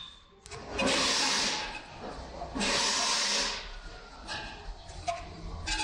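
Pillar drill press boring into a steel tube: two harsh grinding bursts of about a second each, then quieter metallic squeaks.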